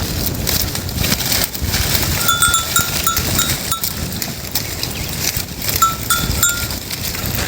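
Bells worn by free-range grazing goats clinking in short runs of quick, same-pitched rings, a couple of seconds in and again near six seconds, over steady rustling noise.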